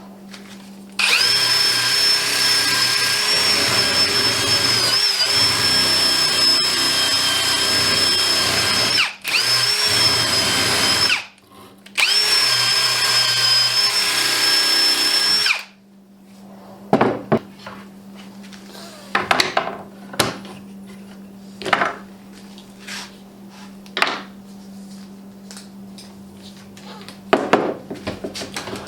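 Drill spinning a brass wire wheel against a steel clamp bar to strip dried wood glue, in three runs with a steady whine: a long one, then two shorter ones, the pitch dipping briefly as it bears down. Then scattered clicks and knocks of handling.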